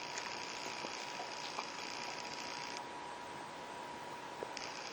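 Quiet room tone: a steady faint hiss with a thin steady high whine, and a few faint small ticks.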